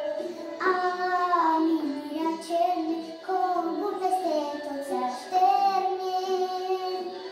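A young girl singing a Romanian folk song into a microphone, moving through sung phrases and holding long notes.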